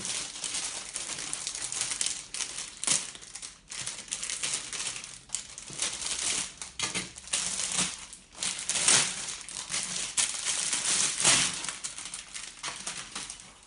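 Plastic wrapping crinkling and crackling in irregular bursts as it is pulled off a cube carrying case, with a few louder crackles along the way.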